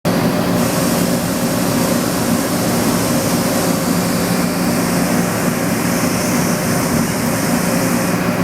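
Steady mechanical hum of a running CNC turning center, with an even hiss over it and no break or change.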